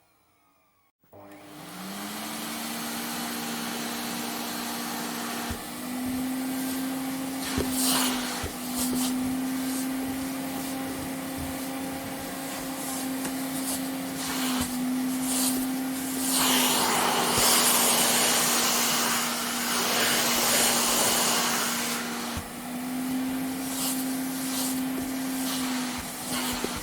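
Vacuum cleaner switched on about a second in, its motor spinning up to a steady whine. It then runs with a rushing suction noise; the whine's pitch steps up and down a little, and the rushing grows louder for several seconds past the middle.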